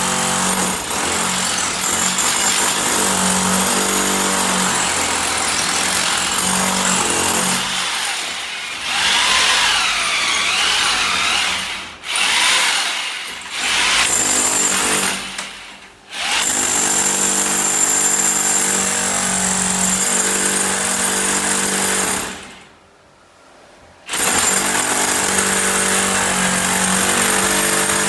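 Electric power drill running under load, drilling into a wall for the air conditioner's mounting or pipe hole. It stops briefly twice in the middle, pauses for about a second and a half near the end, then runs on.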